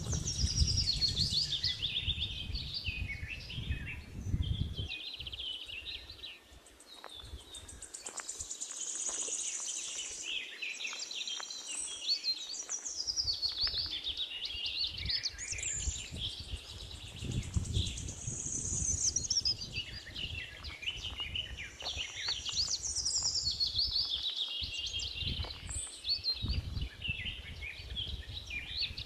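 Birds chirping and singing almost continuously, with rapid high calls overlapping one another. A low rumbling noise sits underneath in the first few seconds and again around the middle.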